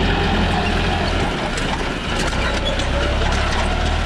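Massey Ferguson 9500 tractor's diesel engine running steadily under load as it pulls a disc harrow through dry soil, its low note easing briefly near the middle.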